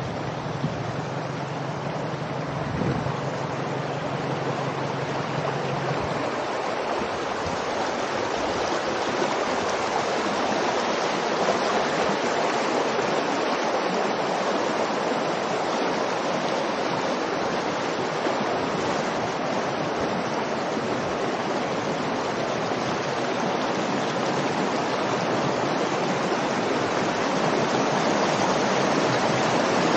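Muddy floodwater rushing over the gravel bed of a wadi in spate: a steady rushing wash that grows slowly louder. A low steady hum sits under it for the first six seconds, then stops.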